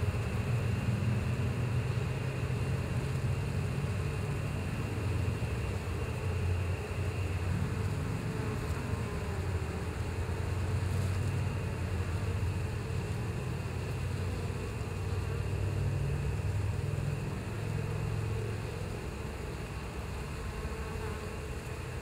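Many honeybees buzzing together in a steady drone at a crowded hive entrance.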